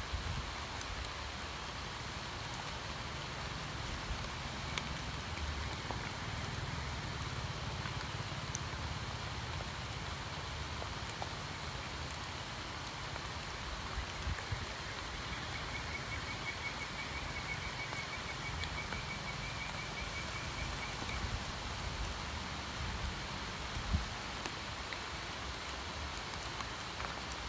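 Steady rain falling on a pond's surface, an even hiss with a low rumble underneath. A faint, rapid high trill sounds for several seconds past the middle, and a single sharp tap stands out near the end.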